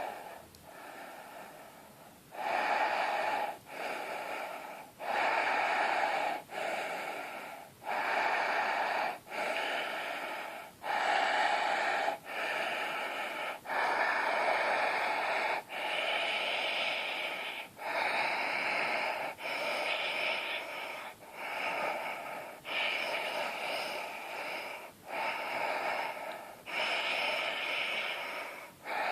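A person breathing very deeply through a wide-open throat, so that each breath is audible. The breaths come one after another, about one to one and a half seconds each, with short breaks between them.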